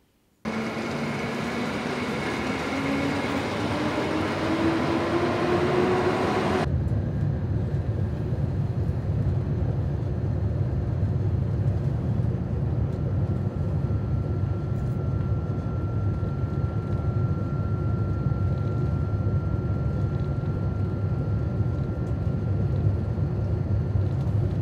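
Passenger train: for the first six seconds a loud rushing noise with a whine rising steadily in pitch as it gathers speed, then an abrupt change to the steady low rumble heard inside the carriage while it runs, with a faint steady high tone in the second half.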